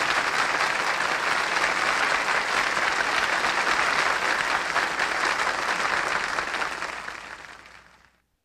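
Studio audience applauding, fading out near the end.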